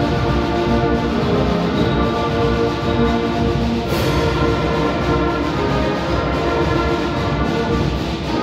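A school concert band playing, with saxophones, trumpets, flutes, baritones and tubas sounding together in sustained chords. A crash comes in about four seconds in.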